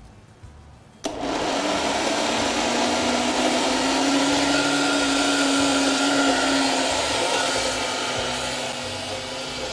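Electric kitchen blender switched on about a second in and running steadily as it blends garlic cream (toum) from garlic, lemon juice and boiled potato; the motor eases slightly near the end.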